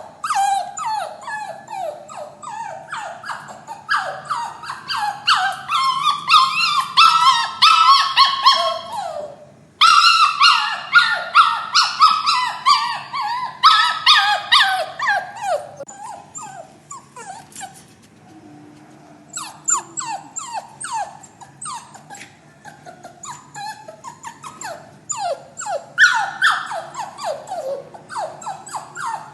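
Puppy crying and whining in distress at being shut in a cage: rapid strings of short, high-pitched cries, each falling in pitch, several a second, with a brief lull a little past halfway.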